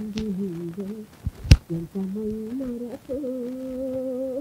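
A woman's voice vocalising a wordless melody in long, smoothly held notes. A single sharp click, the loudest sound here, comes about one and a half seconds in.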